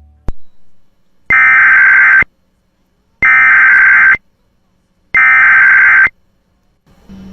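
Emergency Alert System SAME header: three identical bursts of digital data tones, each about a second long and a second apart, after a short click. This warbling data burst encodes the alert's origin, event (here a Child Abduction Emergency) and area, and marks the start of an EAS activation.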